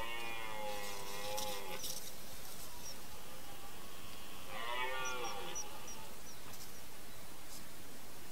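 Red deer stag roaring: two long, wavering moaning calls, one of about two seconds at the start and a shorter one about four and a half seconds in.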